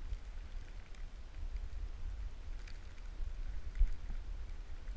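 Wind buffeting the microphone of a skier's camera during a fast run through deep powder, a low unsteady rumble with a few faint ticks and one sharp knock about four seconds in.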